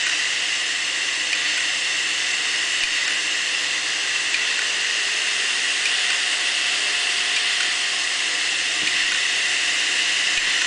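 Opened hard disk drive running with its cover off: a steady whirring hiss from the spinning platter and spindle, with a few faint ticks from the read/write head arm seeking across the platter.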